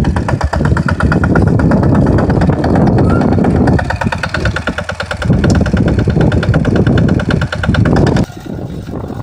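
Walk-behind tractor engine running with a rapid, even firing pulse. A little after eight seconds in it drops sharply to a quieter engine sound.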